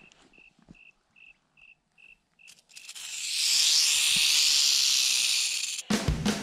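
A cricket chirps in an even rhythm, about two and a half chirps a second. About three seconds in, a Mohave rattlesnake starts rattling, a loud steady buzz that is the snake's defensive warning, lasting about three seconds. Rock music cuts in at the very end.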